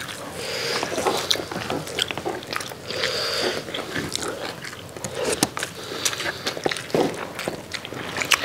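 Close-up eating sounds: mouths chewing big bites of biryani rice and shami kebab, with many short clicks and smacks.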